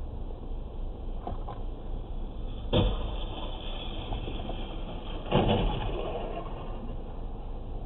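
Car collision recorded from inside a car's cabin over a steady engine hum: a sharp crash about three seconds in, then a second, louder crunch of metal and breaking parts about five seconds in that fades over half a second.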